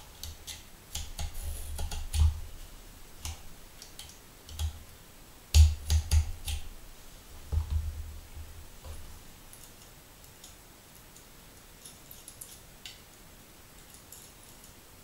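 Handling noise of a glass DRO linear scale being taken apart: irregular clicks, taps and knocks of the metal end cap, small screwdriver and crosshead screws, with dull thumps of the scale's housing against the table. The sharpest knock comes about five and a half seconds in; after about nine seconds only faint scattered ticks remain.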